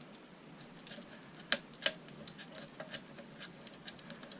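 Scattered small clicks and ticks, two sharper ones about a second and a half in, from a Phillips screwdriver and hands working the screws and plastic parts of an original Xbox disc drive.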